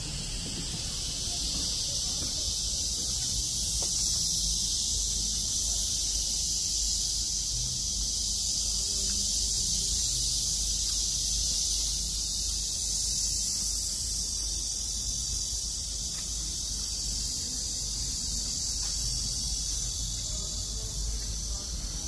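A steady, shrill chorus of cicadas buzzing, with a low rumble underneath.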